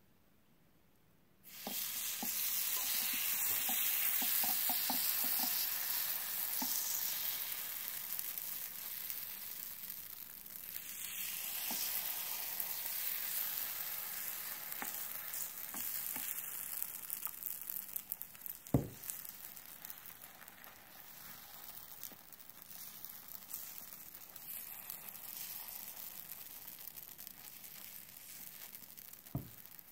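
Minced-meat waffle batter sizzling on the hot plate of an electric waffle iron as it is spooned on and spread, with light taps and scrapes of a plastic spoon. The sizzle starts suddenly about a second and a half in and slowly dies down, with one sharper tap a little past the middle.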